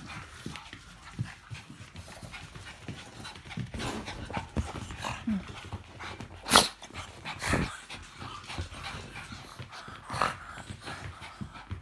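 A pug and a small long-haired dog play-wrestling up close: scuffling and panting, with a few sharp knocks, the loudest about six and a half seconds in.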